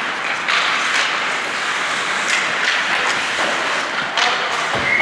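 Ice hockey play in a rink: a steady scraping hiss of skates on the ice, broken by a few sharp knocks of sticks, puck or boards.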